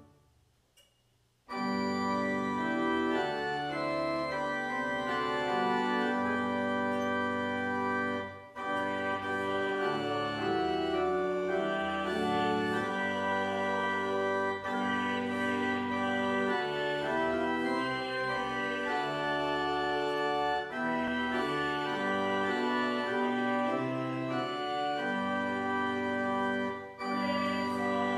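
Church organ playing slow, sustained chords. It begins about a second and a half in, after a brief near-silence, and pauses briefly twice between phrases.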